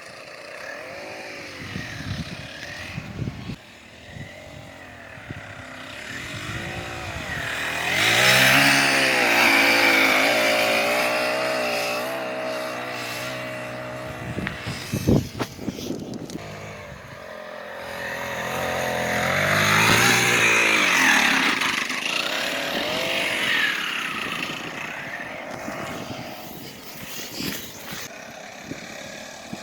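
Small gas engine of a go-kart or scooter revving up and easing off as it laps, passing close twice: about eight seconds in and again about twenty seconds in. A short sharp knock about fifteen seconds in.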